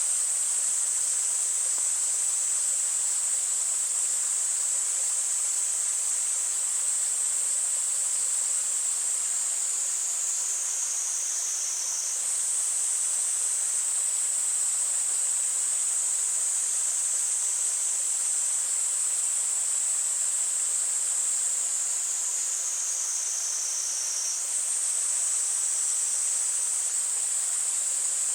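Cicadas buzzing in a steady, high-pitched chorus. The song sags lower twice and snaps back, over a faint wash of stream water.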